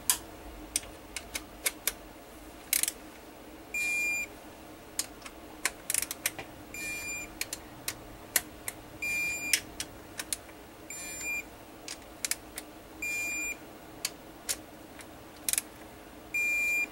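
Digital torque wrench beeping as each transmission pump bolt reaches its 15 ft-lb setting: six short high beeps, two to three seconds apart, with metal clicks of the wrench and socket between them.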